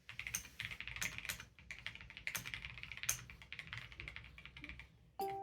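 Rapid typing on a newly built custom mechanical keyboard with tactile switches: a quick, uneven run of keystroke clicks. Ukulele music starts just before the end.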